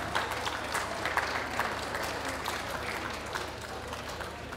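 Audience applauding: many overlapping hand claps, thinning out and dying away near the end.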